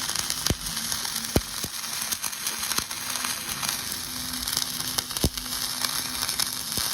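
Wire-feed welding arc running a root pass: a steady crackling hiss with frequent sharp pops.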